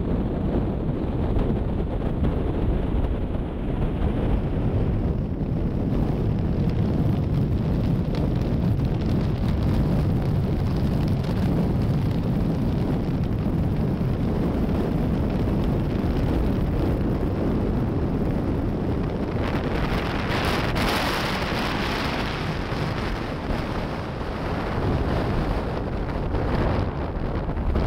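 Strong wind buffeting the microphone, a steady low rumble with a hissier gust about two-thirds of the way through.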